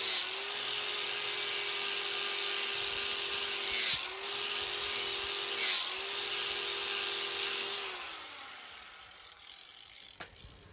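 Corded electric angle grinder running against steel, grinding rust and paint off bare metal ahead of welding; its pitch dips briefly three times as it bites into the work. Near the end it is switched off and winds down.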